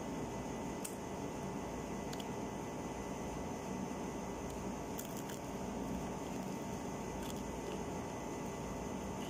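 Fried chicken being torn apart by hand and eaten, a few faint clicks and squishes over a steady background hum and hiss.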